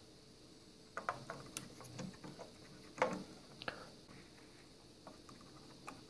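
Faint plastic clicks and taps as the latches of a motherboard's DDR4 memory slots are flipped open and a RAM stick is handled into place: a handful of small, separate clicks, the sharpest about three seconds in.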